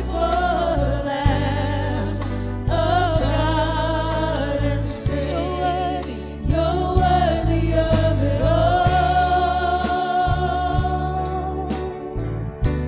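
Gospel worship song: a singer holding long notes with a wavering vibrato over a band, with steady bass notes underneath.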